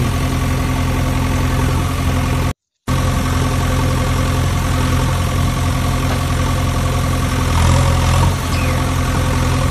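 Engine idling with a steady drone; the sound cuts out completely for a moment about two and a half seconds in.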